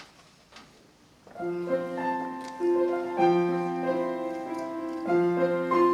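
Piano starts playing about a second in, slow held chords that change every second or two, as the introduction to a children's choir song. A few faint knocks come before it.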